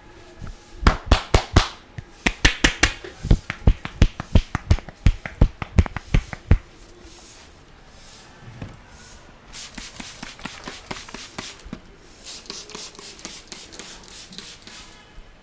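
Hands striking a head during a head massage, in quick, sharp percussive pats, about three to four a second for some six seconds. After a short pause come lighter, faster patting and rubbing strokes.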